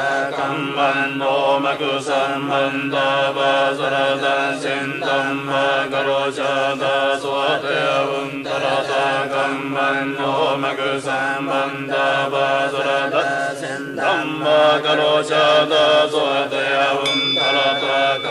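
Japanese Shingon Buddhist chanting of sutras and mantras: a voice reciting at a steady, even pace. Near the end a high ringing tone starts suddenly and holds under the chant.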